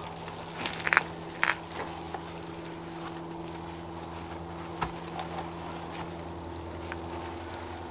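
A soapy wash mitt wiped over a car's foam-covered paint, with a few brief swishes about a second in, over a steady low hum.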